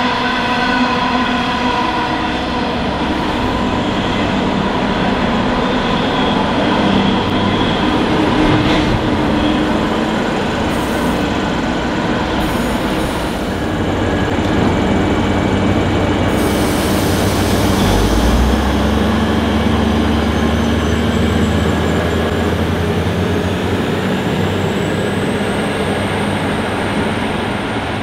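Coal train hopper wagons rolling past at speed, their wheels squealing in a set of steady high tones. From about halfway a diesel Hunter passenger railcar's engine rumbles low and strong.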